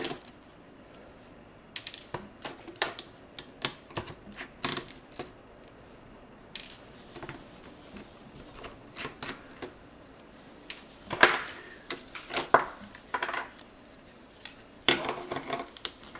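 Irregular small clicks and taps of tools and plastic parts as an LG VN251 slider phone is taken apart, with louder clusters of clicks about two thirds of the way in and near the end.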